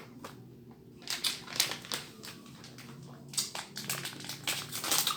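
Irregular sharp crinkles and clicks of candy wrappers being handled, quiet for the first second and then coming thick and fast.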